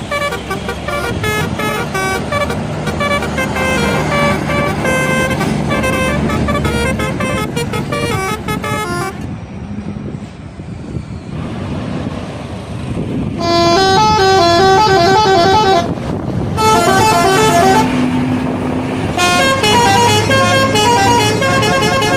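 Indonesian bus telolet horns playing rapid multi-note melodies that step quickly up and down in pitch, several tones at once. The melodies run for the first nine seconds or so and break off for a lull of a few seconds. They then come back in three louder bursts, each a couple of seconds long.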